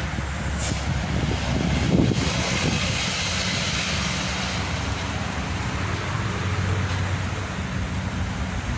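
Continuous traffic noise from a toll road: tyres and engines of passing vehicles making a steady wash of sound with a low engine hum underneath. A short knock sounds about two seconds in.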